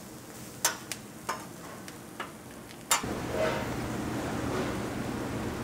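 Metal spatulas chopping and scraping food on a steel flat-top griddle, four sharp metallic clacks spaced about a second apart. About three seconds in, a louder steady kitchen noise with a low hum takes over.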